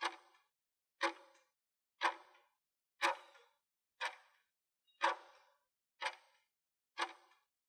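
Countdown-timer tick sound effect, one sharp tick a second, eight in all, each with a short ringing tail.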